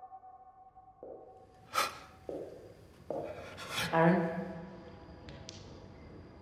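Film sound design: a sustained, ringing musical drone fades out about a second in. It gives way to a series of sudden, muffled noise bursts and a few sharp clicks, with one voice calling a name near the middle.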